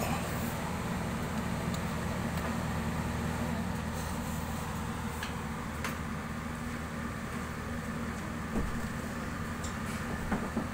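Hoshizaki commercial ice maker running with a steady low mechanical hum, working again after repair. A soft knock comes about eight and a half seconds in, and light clicks come near the end.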